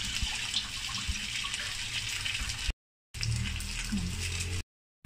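Pork patties sizzling in hot oil in a steel wok, with a few light taps of a metal spatula. The sizzle cuts off twice for a moment.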